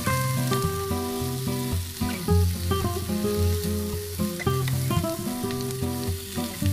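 Tomatoes and scrambled eggs sizzling in a frying pan as a wooden spatula stirs and scrapes them, over background music with changing notes.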